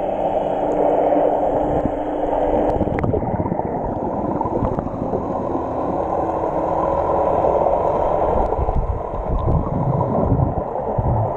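Muffled underwater water noise picked up by an action camera in a waterproof housing: a dense, dull rushing and gurgling of water around the case. A steady low hum fades out about three seconds in, and the gurgling grows louder and choppier near the end as the camera nears the surface.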